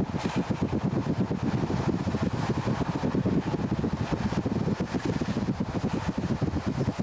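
Running noise of a moving local train, heard from the carriage window, with wind buffeting the microphone in rapid, irregular gusts over a steady low rumble.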